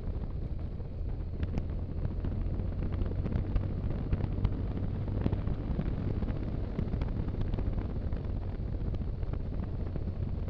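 Wind buffeting the camera's microphone as it rides up a gravel road, a steady low rumble with scattered small clicks and rattles from the tyres on loose gravel.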